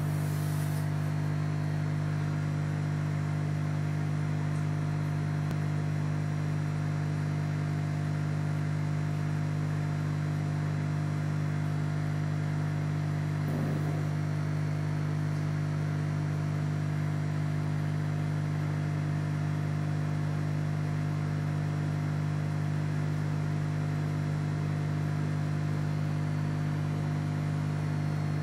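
Aquarium pump humming steadily, a constant low mains-pitched drone with a faint hiss over it.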